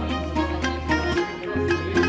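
Music: a plucked-string melody over a held bass line that shifts every second or so.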